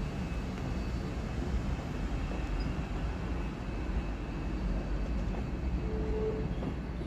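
LNER Azuma class 800 bi-mode train running on its underfloor diesel engines as it moves off away from the level crossing, a steady low rumble.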